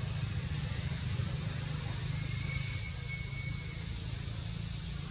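Steady outdoor background noise: a low rumble with an even hiss over it, like distant traffic. A faint thin high tone is held for about a second and a half near the middle.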